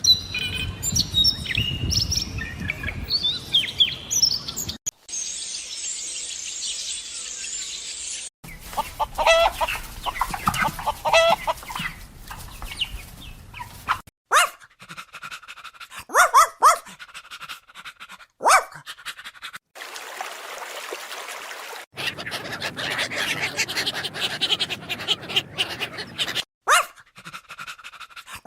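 A run of short animal sound clips joined by abrupt cuts, opening with bird chirps and followed by other short pitched animal calls and a stretch of hissing.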